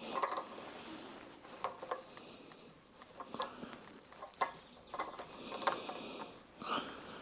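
Irregular clicks, taps and light scraping of a silicone-coated threaded plumbing fitting being screwed into a water heater by hand, with a few brief higher-pitched scraping or squeaking stretches.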